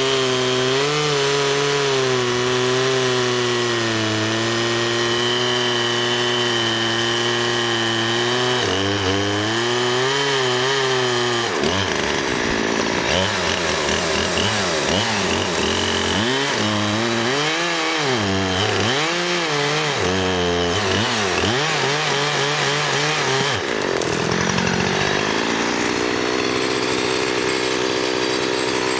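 Chainsaw running hard while cutting through wood, the engine note sagging and recovering again and again as the chain takes the load. Near the end the revs drop and then climb back up.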